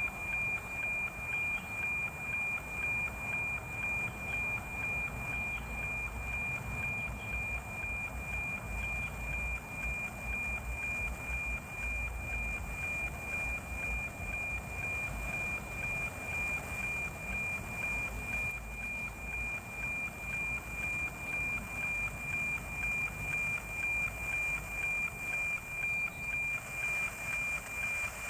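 NOAA 19 weather satellite's APT image signal, received on 137.1 MHz and demodulated by an SDR receiver: a steady 2,400 Hz whistle over hiss, pulsing in an even tick-tock of about two beats a second as each image line comes in.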